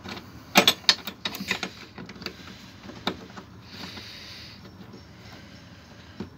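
Metal hook latch of a truck cab's bench seat being worked by hand: a quick run of sharp metallic clicks and clacks in the first couple of seconds, a few more single clicks after, then a short soft hiss.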